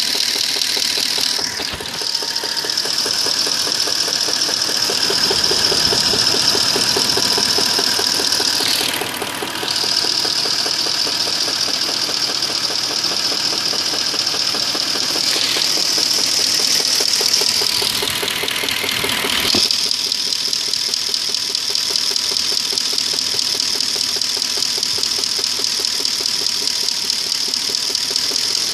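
Audi A8 quattro 3.7 V8 engine idling with a steady knock. The knock is the one that comes on a hot engine with the automatic selector in D or R and goes away on the move, and no fault codes point to its cause. The running sound shifts several times, and settles after about twenty seconds.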